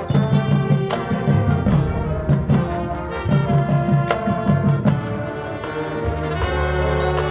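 Marching band playing: brass over pounding low drums, ending on a held low brass chord.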